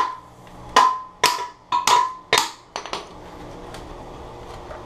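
Hammer tapping the porcelain base of an old toilet: about six sharp, ringing strikes in the first three seconds, then a couple of faint taps. The porcelain is being chipped away around seized floor bolts that won't unscrew, to free the toilet.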